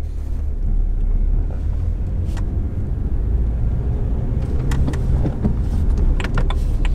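Steady low rumble of engine and road noise heard inside the cabin of a BMW 135i while it is driven, its N55 3.0-litre turbocharged straight-six running under light load. A few light clicks come in the second half.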